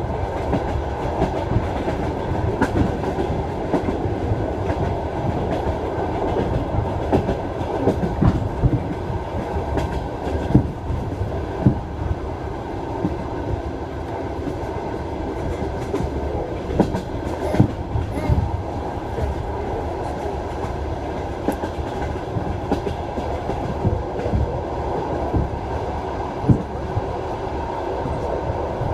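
Train wheels clattering over rail joints on a moving train: a steady rumble with sharp knocks every few seconds.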